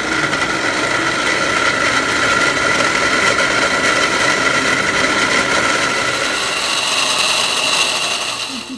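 Countertop blender running steadily with a whine, grinding chiles into a red sauce; the whine brightens in the last couple of seconds and the motor cuts off just before the end.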